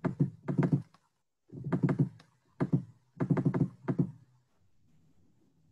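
Rapid knocking taps in about five short bursts during the first four seconds.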